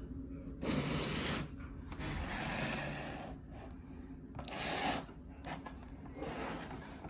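A shrink-wrapped cardboard router box handled and turned on a desk: four rubbing, scraping bursts of plastic wrap and cardboard against hands and the desktop, each lasting about half a second to a second.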